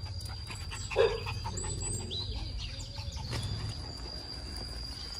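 Animal sounds: a short, loud call about a second in, then a few small bird chirps, over a steady high tone and a low rumble.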